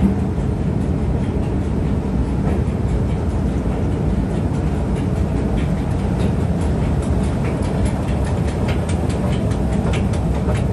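Steady low rumbling noise of a moving escalator with the hum of an underground station around it, with a few faint clicks in the last few seconds.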